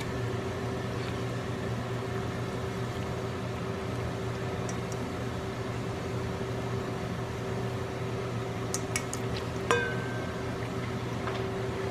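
Steady mechanical hum of a kitchen appliance, with a few faint clicks and a short metallic clink about ten seconds in as raw silkie chickens are lowered from a stainless steel bowl into a pot of water.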